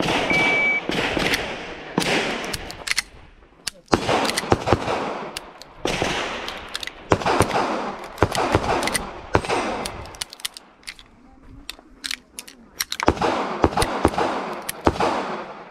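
Electronic shot-timer start beep, then pistol shots fired in quick strings of several shots with short pauses between them, thinning out for a couple of seconds past the middle.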